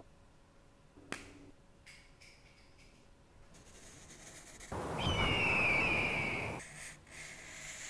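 A red marker tapping once on paper, then dragged across it in one scratchy stroke of about two seconds with a squeak that slides slightly down in pitch.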